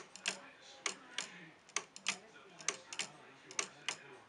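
Wooden pendulum clock's escapement ticking: the wooden escape wheel's teeth striking the wooden anchor pallets, giving sharp clicks in pairs about a third of a second apart, a pair a little under once a second.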